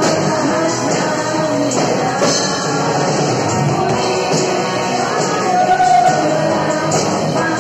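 Live worship band playing an upbeat praise song: a woman and a man singing into microphones over electric guitars and drums.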